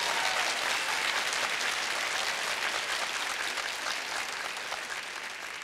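Audience applauding steadily, the clapping slowly dying away toward the end.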